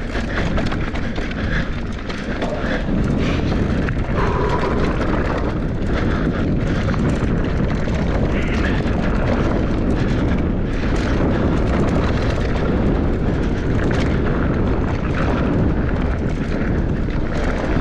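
Wind buffeting the GoPro's microphone as a mountain bike rolls fast down a dirt trail, with tyre noise and short rattles from the bike over bumps.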